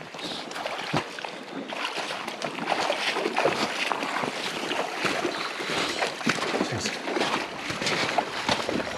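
Water splashing and rushing in a river, with irregular splashes from about two seconds in as a hooked trout is played close to the angler.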